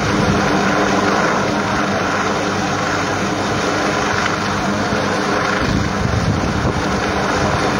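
Military helicopter hovering, its rotor and engines making a steady drone, with wind buffeting the microphone.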